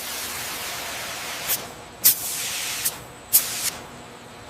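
A steady hiss broken by several short, sharp bursts of hissing, five in all.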